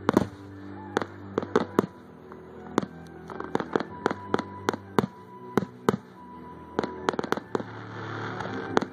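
Fireworks display: aerial shells going off in a rapid, irregular string of sharp bangs and cracks, several a second, with a crackling hiss building near the end.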